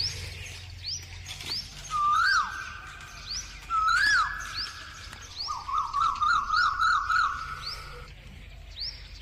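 Birds calling outdoors: a steady run of short, high, rising chirps about twice a second. Over them come two louder whistled calls, each rising and then held, about two and four seconds in, and a warbling trill from about five and a half to eight seconds.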